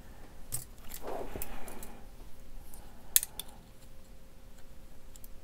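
Small metallic clicks and clinks of a brass 30-06 cartridge being handled at a single-stage reloading press and measured with calipers, with a short scrape about a second in and a sharp click about three seconds in.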